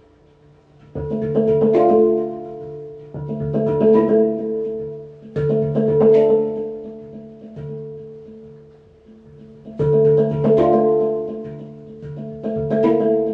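Slow instrumental background music: notes that start sharply and fade, over a held tone, in phrases that swell about every two seconds, with a quieter lull around the middle.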